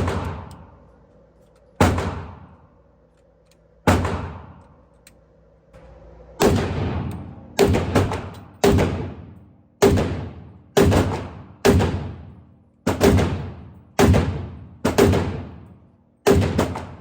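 Mini AK firing 7.62 rounds in single shots, each with a ringing tail: three shots about two seconds apart, then about a dozen more at roughly one a second.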